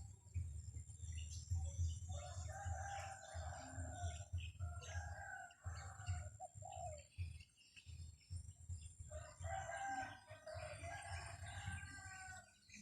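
A bird calls in two long bouts of repeated pitched notes, one about two seconds in and one near the end, over a steady low rumble of strong wind on the microphone.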